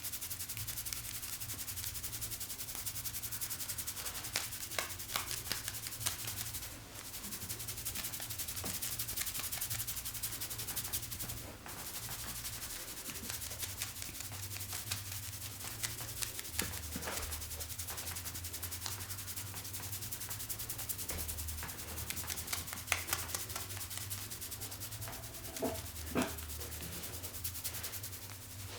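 Head massage: fingers rubbing and scratching steadily through hair and over the scalp, a dense friction sound that pauses briefly twice, with a few sharper clicks.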